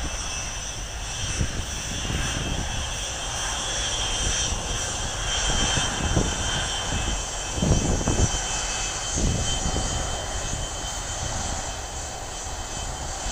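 A Bombardier Dash 8-Q400's twin PW150A turboprops at take-off power as it rolls down the runway, a steady engine drone.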